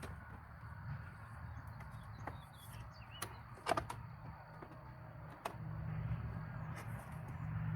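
A few sharp clicks and taps of plastic parts and a screwdriver as a turn signal multi-switch is worked into place on a steering column and its first screw started, the loudest a double click near the middle, over a low steady hum.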